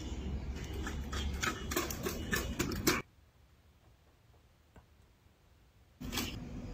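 A quadruped robot dog's feet tapping on paving stones as it walks: a rapid, irregular run of clicks for about three seconds. The sound then drops to near silence for about three seconds, and a burst of noise comes back near the end.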